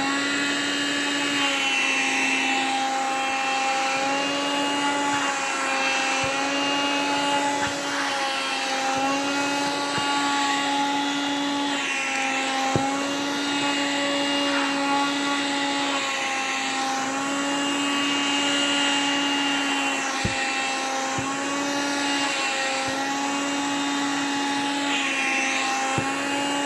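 Vacuum cleaner running steadily over a duvet in a crinkly high-density anti-mite cover, its whine shifting in pitch every couple of seconds as the nozzle grips and drags across the fabric, with a few faint clicks.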